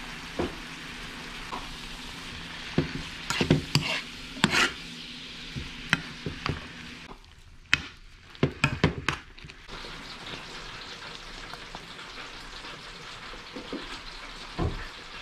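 Chicken, carrots and snap peas sizzling steadily in a hot frying pan, with a metal spoon scraping and clacking against the pan in two spells of stirring, about three and about eight seconds in.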